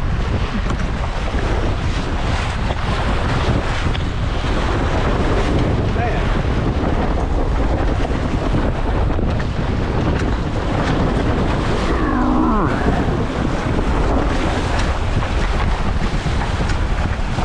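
Strong wind buffeting the microphone, with water rushing and splashing against the hulls of a Tornado catamaran sailing through steep chop. A short pitched, bending sound cuts in about twelve seconds in.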